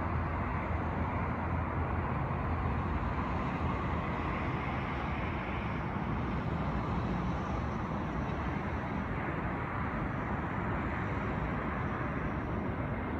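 Steady, even roar of a jet airliner on final approach to land.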